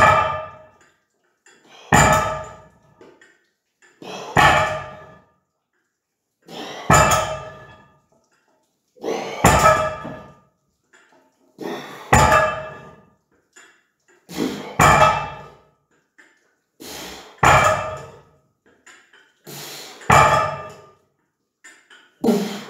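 Iron weight plates on a rolling thunder grip handle's loading pin, loaded to 60 kg, clanking down on the floor once every two and a half seconds or so as one-handed reps are set down, each impact followed by a short metallic ring.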